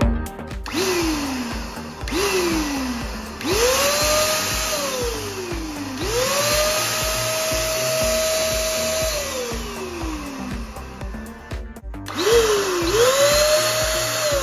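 Buildskill Basics BPS2190 electric paint sprayer's 600 W motor switched on and off repeatedly. It gives a couple of short blips first, then longer runs where it whirs up to a steady high whine, holds, and winds down when switched off.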